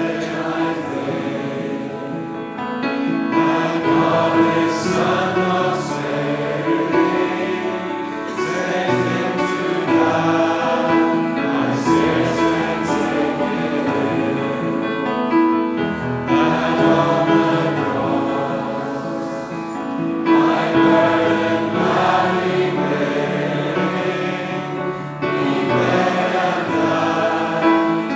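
A choir singing a hymn in sustained, held phrases.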